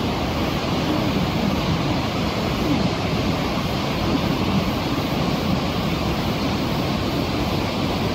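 Steady, unbroken rush of a large river's white-water rapids: the muddy, swollen Jinsha River churning through a narrow rock gorge.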